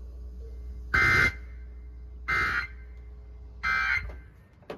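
Emergency Alert System end-of-message data bursts heard over FM radio: three short two-tone digital warbles, each about a third of a second long and about 1.3 s apart, signalling the end of the severe thunderstorm warning.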